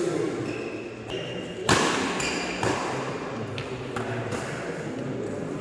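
Badminton rackets hitting a shuttlecock in a doubles rally, echoing in a sports hall. A sharp, loud hit comes a little under two seconds in, then lighter hits follow at irregular intervals about a second apart.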